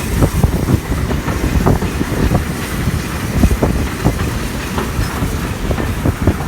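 Heritage railway passenger coach rolling on jointed track: a steady low rumble with frequent irregular clicks and knocks from the wheels over rail joints, as the train runs in to stop at a station.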